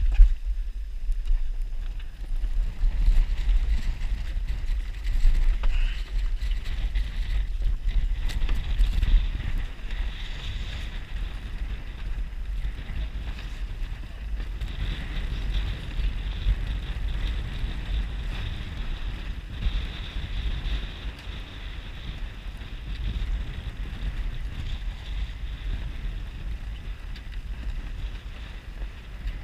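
Strong wind buffeting the microphone on a sailboat, a gusting low rumble that runs on throughout, with a hiss of choppy water along the hull.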